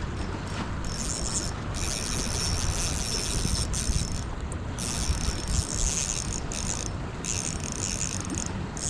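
Spinning reel's drag buzzing in several long runs as a hooked steelhead pulls line off against it.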